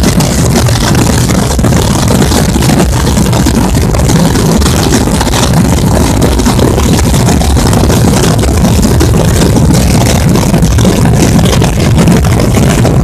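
Massed Holy Week drums of Bajo Aragón: a large crowd of snare drums (tambores) and bass drums (bombos) beating together in one continuous, loud, unbroken roll with a heavy low rumble from the bass drums.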